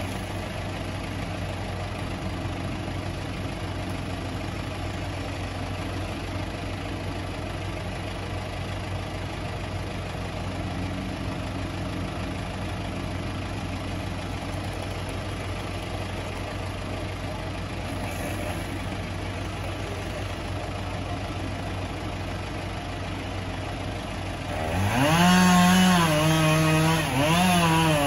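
Tow-behind wood chipper's engine idling steadily, then throttling up sharply about 25 seconds in and running loud with a wavering pitch.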